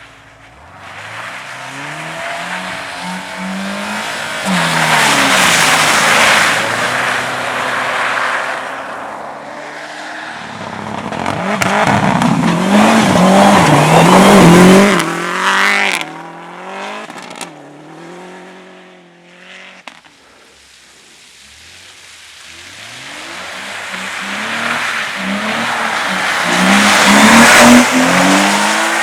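Competition cars lapping a track, their engines revving up and down as they come close and pull away, with a haze of tyre noise. There are three loud passes: one about five seconds in, one in the middle where the revs rise and fall quickly several times, and a last one near the end.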